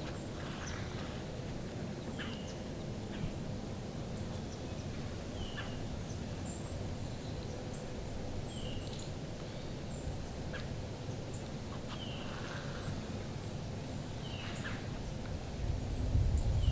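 Short bird calls repeating every two to three seconds, each a quick high chirp, over steady low background noise that swells near the end.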